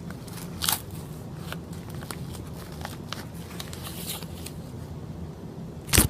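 Packaging being handled and rummaged through by hand: crinkling, crackling and small clicks, with a sharper crackle about a second in and a loud crackle near the end, over a steady low hum.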